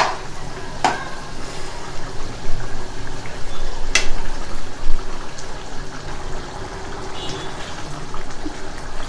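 Mutton curry gravy bubbling as it simmers in a pan on the stove, with two sharp clicks, about a second in and about four seconds in.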